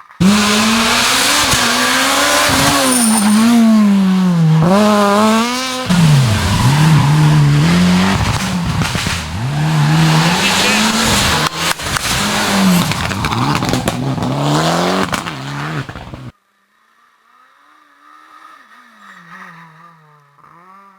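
Rally car engine revving hard and close, its pitch climbing and dropping repeatedly as it goes up and down through the gears. It cuts off abruptly about sixteen seconds in, and a much fainter rally car engine follows, also rising and falling in pitch.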